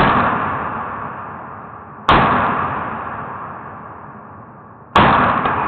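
Three rifle shots from a Bushmaster .223 AR-15, about two to three seconds apart, slowed down. Each is a sharp bang that dies away in a long, low, drawn-out rumble.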